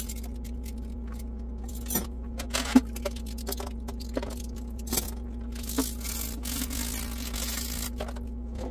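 Metal cutlery clinking against itself and the stainless steel sink as it is washed by hand in soapy water, a handful of sharp clinks with the loudest about three seconds in, then a couple of seconds of scrubbing and water noise near the end.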